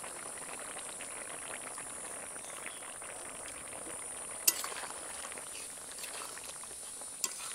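A vegetable stew simmering with a steady bubbling crackle in a metal kadai as rice paste is stirred in with a ladle; the ladle clinks sharply against the pan about halfway through and once more lightly near the end.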